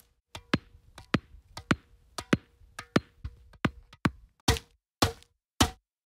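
Tennis ball struck on racket strings again and again: sharp pops close to two a second, some in quick pairs, several followed by a short ringing ping of the strings.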